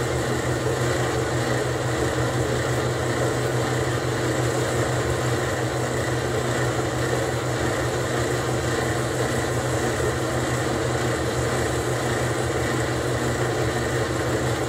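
Wet gravity shaker table running: a steady mechanical drone from its drive, with water washing over the deck.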